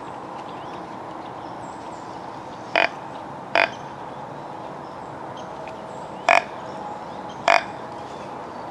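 Four short, harsh animal calls, each a fraction of a second long. They come in two pairs, one about three seconds in and one near the end.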